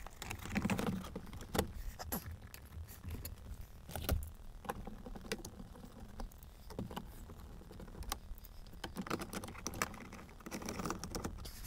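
Irregular small plastic clicks, knocks and rattles from handling a car's instrument cluster and plugging its wiring connectors back in.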